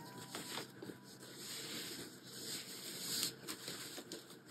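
Faint rustling of yarn being handled and pulled through crocheted fabric, with a few soft ticks.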